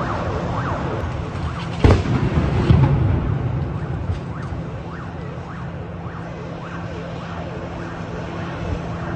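Emergency vehicle sirens wailing in quick rising-and-falling sweeps, with a single sharp loud bang about two seconds in followed by a low rumble: an explosion in a burning apartment block.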